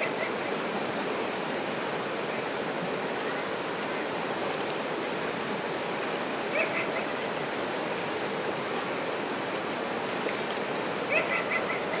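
River rapids rushing steadily over rocks, a dense even wash of moving water. Twice, about halfway and again near the end, an animal gives a short burst of quick high calls above it.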